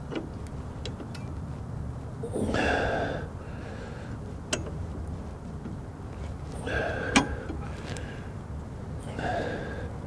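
A man grunts with effort three times, and a few sharp clicks and taps sound as a shoulder bolt is worked into the mount of a tractor's hydraulic lift ram.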